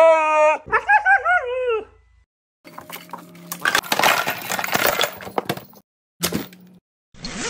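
A Siberian husky makes a wavering, pitched howl-like "talking" call in the first two seconds. It is followed by a few seconds of rustling and clattering as toys and items are tossed into a suitcase, then two short rasping bursts near the end as the suitcase is zipped.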